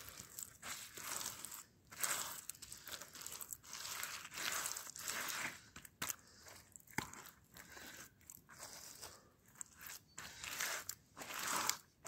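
Gloved hand smearing wet clay mud onto rough stone: an irregular run of gritty scraping and crunching strokes, with a few sharp clicks of grit.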